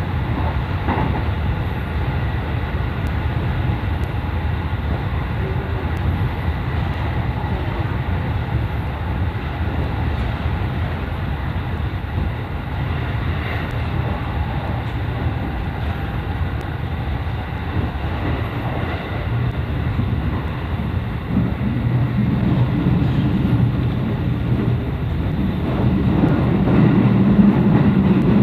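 A train running along the line: a steady low rumble that grows louder near the end.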